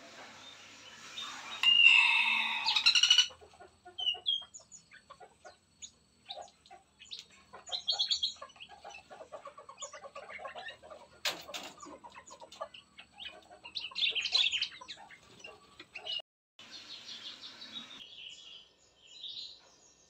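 Caged songbirds, bulbuls among them, chirping and calling. A loud drawn-out call comes about two seconds in, followed by scattered short chirps and clicks, and the sound cuts off and back in a few times.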